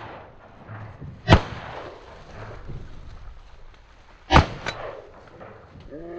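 Shotgun shots at ducks: two loud blasts about three seconds apart, with a fainter shot right after the second.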